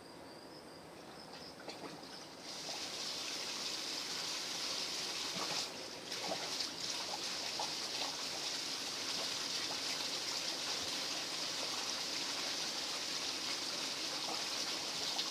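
Sump pump discharge: water starts rushing out of the outlet about two and a half seconds in and keeps flowing steadily as the pump empties the sump.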